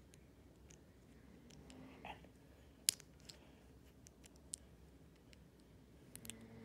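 Loose plastic LEGO pieces clicking against one another as fingers sort through a pile of them: scattered sharp clicks, the loudest about three seconds in and a quick cluster near the end.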